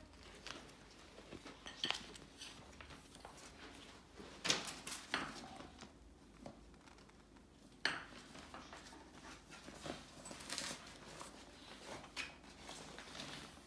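Nylon fabric rustling in short bursts, with a few light knocks and clicks, as a support tube is pushed into a portacot bassinet's fabric pocket.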